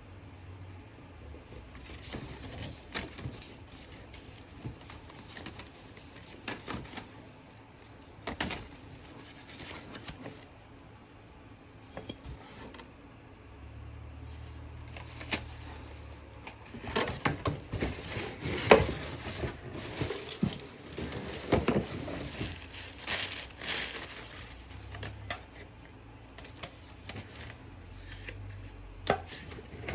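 Bone china dinnerware being unpacked: packing material crinkling and tearing, with dishes clicking and clinking as they are handled. The handling is busiest and loudest in the middle.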